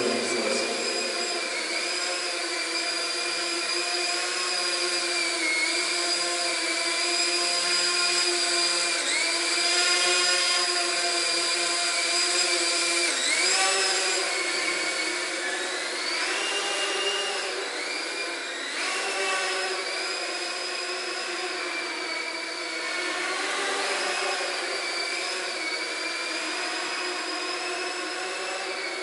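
Small quadcopter drone's electric motors and propellers whining in flight, the pitch gliding up and down several times as the throttle changes.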